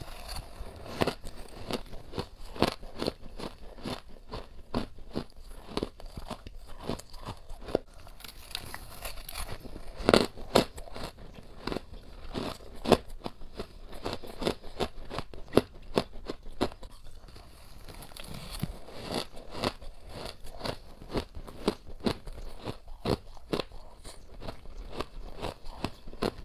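Close-up biting and chewing of crunchy humidifier frost: a continuous run of irregular crunches and crackles, with sharper louder bites now and then, the loudest about ten seconds in.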